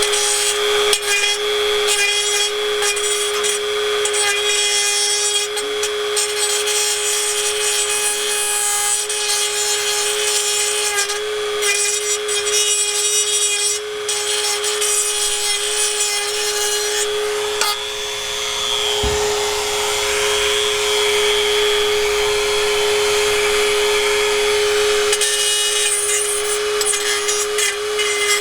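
Dremel 4000 rotary tool running at a steady high-pitched whine, its sanding pad grinding down the cracked end of an exhaust pipe with a continuous rasping scrape. The metal is being ground back so the cracked ends stop tapping together and rattling.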